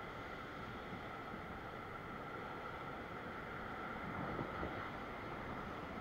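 Steady wash of ocean surf against a rock ledge, with wind on the microphone.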